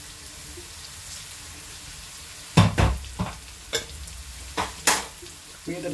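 Onions and spices frying gently in coconut oil in a wok, a steady low sizzle. From about two and a half seconds in come about five sharp clinks and knocks as salt powder is tipped into the pan.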